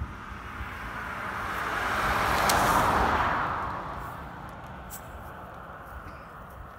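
A motor vehicle passing by: its engine and tyre noise swells to a peak about three seconds in, then fades away.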